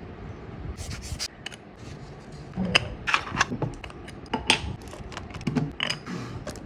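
Irregular clicks and light knocks of the reassembled telephoto lens and its parts being handled.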